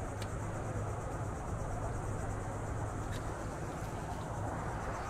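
A steady low hum under a faint, high, pulsing chirr of insects, with two small clicks.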